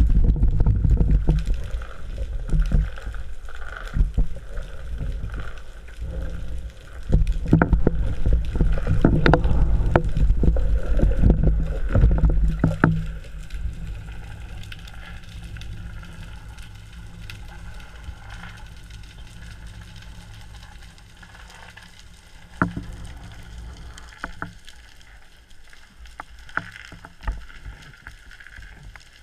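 Underwater sound picked up through an action camera's waterproof housing during a spearfishing dive: low rumbling water noise with scattered clicks and knocks, loud for about the first thirteen seconds, then much quieter with only an occasional click.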